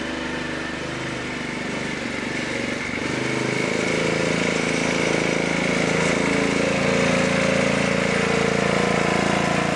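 Garden tractor's small engine running, growing louder about three seconds in and then holding a steady note under load as it climbs a hill.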